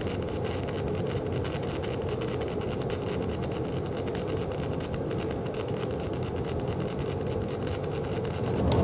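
Self-shielded flux-cored welding arc crackling steadily. The wire is stubbing into the work because the wire feed speed is set too high.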